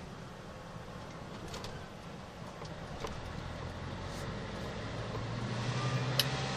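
Scania R580's V8 diesel engine running as heard inside the truck cab while the truck rolls slowly, a steady low drone that grows louder about five seconds in. A sharp click sounds near the end.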